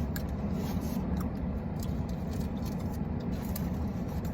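Steady low hum of a parked car running, heard from inside the cabin, with a few faint small clicks and taps on top.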